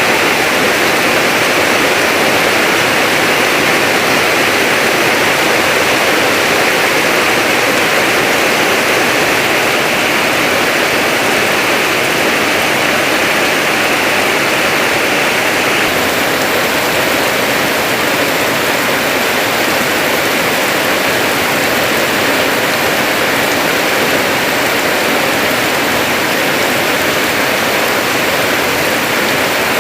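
Heavy rain pouring down in a steady, dense hiss; its tone shifts slightly about halfway through.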